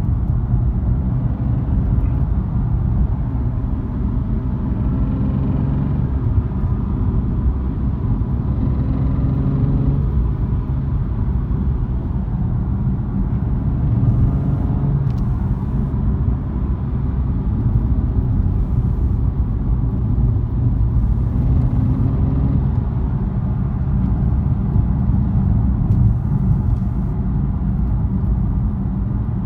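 BMW F80 M3's S55 twin-turbo inline-six driving under way, a steady low rumble with faint tones rising in pitch a couple of times as it accelerates: the strange noise the owner hears when accelerating.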